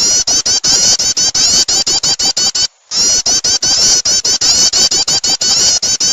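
Recorded prenjak (prinia) lure call played back: a loud, fast run of short high chattering notes, about seven a second, with a brief break a little before the middle.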